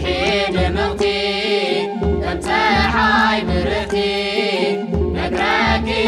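Music: a voice singing long, wavering chant-like phrases over steady held tones and a low pulsing bass.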